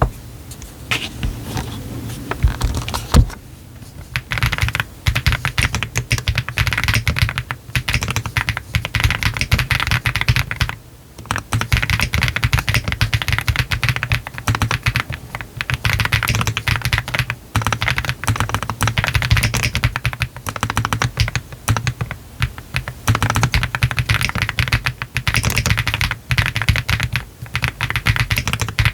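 Typing on a Meletrix ZOOM TKL custom mechanical keyboard with Y3 switches, all foams installed, a PC flex-cut plate and PBT keycaps. Fast, continuous keystrokes with a few short pauses, one near four seconds in and one around eleven seconds.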